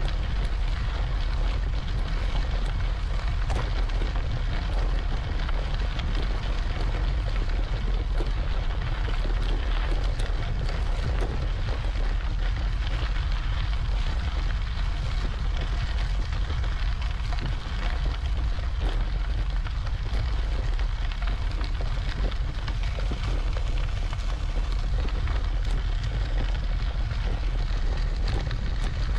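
Steady wind rumble buffeting the microphone, with road and tyre noise from a recumbent trike rolling along.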